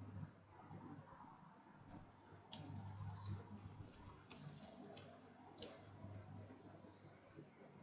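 Faint typing on a computer keyboard: about a dozen quick key clicks from about two seconds in until past five seconds, over a low steady hum.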